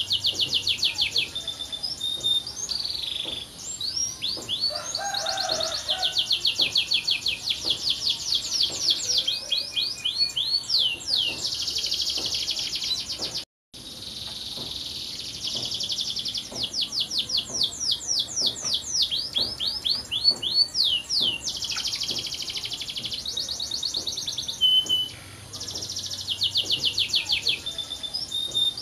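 Canary singing a long, continuous song of rapid trills and repeated rolling phrases, high-pitched, with a brief sudden break about halfway through.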